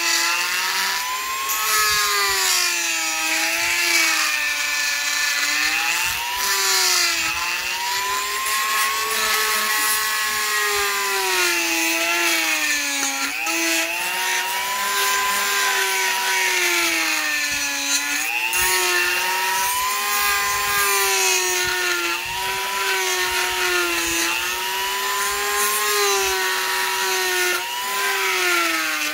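A high-speed rotary bit in a small table cuts the edge of a carbon-fibre plate with a whining, grinding sound. The motor's pitch sags each time the plate is pushed into the bit and recovers as the pressure eases, every few seconds.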